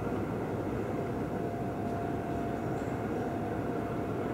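Steady mechanical rumble of a rail track maintenance train running, with a faint steady whine above it.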